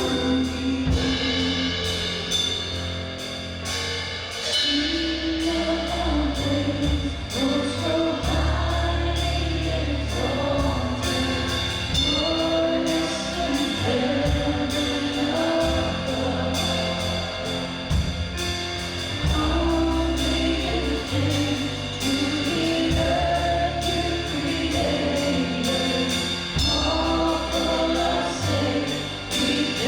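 Congregational worship song: a band with drum kit and bass accompanying a group of voices singing together.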